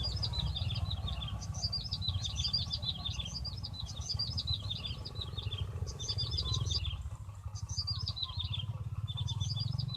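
Small birds chirping in quick repeated phrases of high notes, with a short lull about seven seconds in. A steady low rumble runs underneath.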